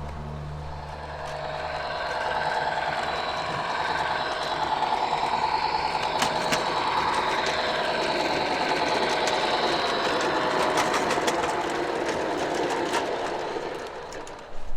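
16mm-scale model garden railway train running past on the track, its sound rising, holding, then fading near the end, with many sharp clicks over a whirring, wavering tone.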